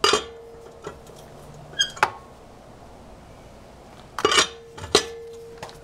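Hand lug wrench clanking on a car wheel's lug nuts while they are being loosened: several sharp metal knocks, two of them followed by a short, steady metallic ring.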